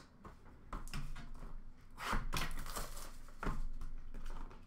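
Hands handling trading card packs and boxes: rustling with a few soft knocks as packs are picked up and set down.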